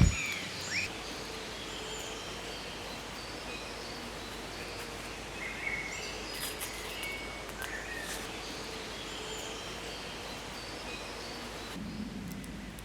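Steady rush of strong wind through trees, with small birds chirping now and then.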